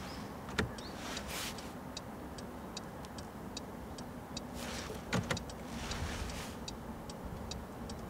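Porsche 911 GT3's turn-signal stalk clicked, then the indicator ticking steadily at about two and a half ticks a second, with a few louder clicks and short rustles around it.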